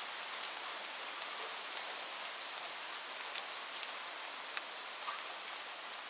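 Light rain falling steadily: an even hiss with scattered sharp ticks of single drops landing close by.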